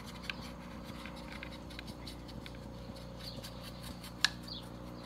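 Light clicking and tapping from handwork on a helmet, with one sharper click about four seconds in. A few short, high bird chirps come in the second half.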